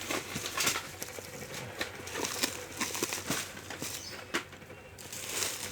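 A shipping parcel being handled and opened: plastic packaging crinkling and rustling, with scattered clicks and scrapes, and a longer rustle near the end.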